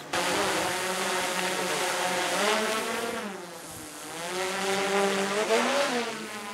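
Quadcopter drone buzzing in flight, its propeller pitch sliding down and back up several times as it manoeuvres, fading a little midway before swelling again.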